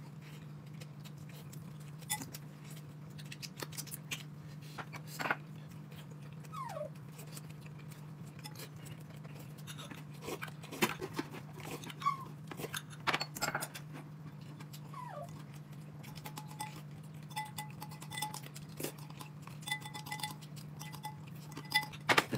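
Faint clicks and clinks of eating and tableware over a steady low hum, with two faint short falling whines.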